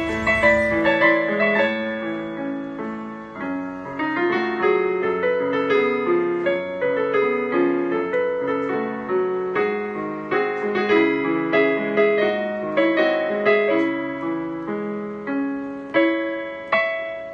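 Solo piano playing a flowing piece of broken-chord figures, with a few louder struck notes near the end. A hiss underneath stops about a second in.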